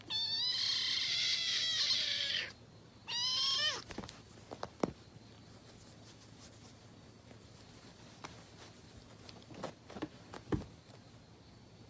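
A cat meowing: two long, wavering meows, the first about two and a half seconds long and the second about a second, then only a few faint taps.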